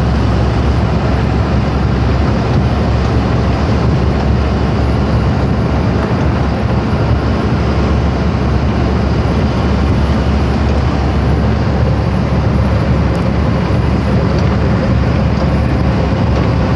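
Steady running noise of a Mercedes-Benz Axor 1933 truck cruising, heard inside the cab: a low diesel engine drone mixed with tyre and wind noise.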